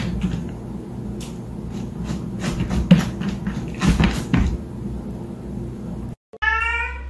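Scattered light taps and knocks, then after a sudden break a cat meows once near the end.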